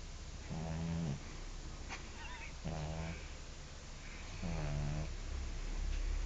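French bulldog snoring in deep sleep: three snores about two seconds apart, each lasting about half a second.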